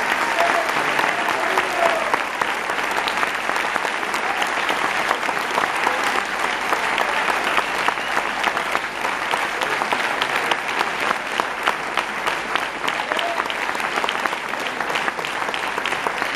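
Audience applauding, a dense patter of many hands clapping, with single claps standing out more toward the end.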